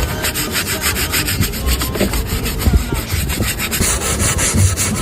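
Rapid back-and-forth scraping strokes, about five a second, like a hand tool worked over a part.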